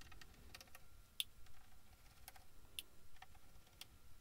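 Faint, irregular small clicks of a number one Phillips screwdriver and small machine screws against the mixer's metal fader panel as the fader-bank mounting screws are taken out.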